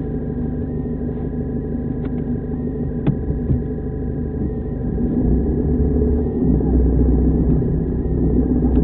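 Car engine idling, heard from inside the cabin, with a single sharp click about three seconds in. From about five seconds in the engine note deepens and grows louder as the car pulls away.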